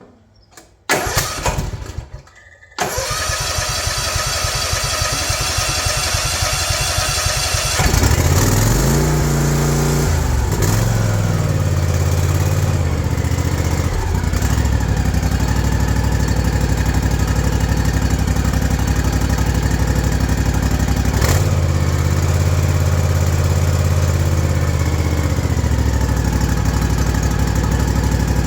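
A Kawasaki FR691V V-twin mower engine is cranked by its starter in short bursts and catches about three seconds in. It then runs steadily, with its speed rising and falling a few times. The engine is being test-run after its carburetor was cleaned to cure a surging idle.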